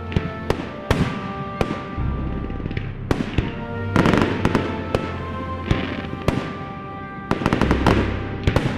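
Fireworks going off: a string of sharp bangs, with dense crackling clusters about four seconds in and again near the end. Music plays underneath.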